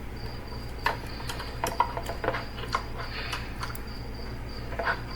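Small scattered clicks and taps as the metal retaining clips around a Uconnect head unit's screen assembly are pressed down over their tabs by hand, over a faint steady hum.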